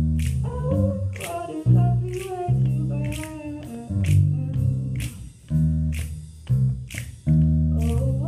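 Jazz big band playing, with a woman singing into a microphone over strong bass notes and cymbal strokes about twice a second. Her voice comes in about half a second in and drops out around the middle.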